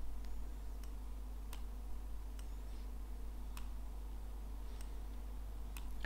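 A handful of sharp, scattered computer mouse clicks, a second or more apart, over a steady low hum.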